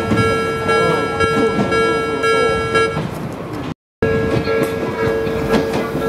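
Japanese level-crossing warning bell ringing steadily while an Odakyu train runs past over the rails. The bell stops about three seconds in, the sound cuts out for a moment, and then bell and train noise return.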